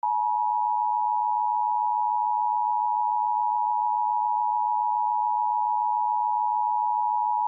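Emergency Alert System attention signal: the steady, unbroken two-tone alert (853 and 960 Hz sounded together) that marks the start of an EAS broadcast, here a required monthly test.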